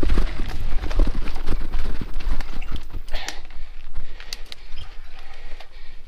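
Mountain bike rattling over a bumpy dirt trail: an irregular run of knocks and clatters, over a steady low rumble of wind on the microphone.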